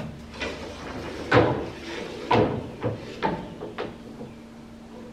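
A long thin wooden batten being laid across timber deck beams, knocking against them half a dozen times, the loudest knocks in the first two and a half seconds.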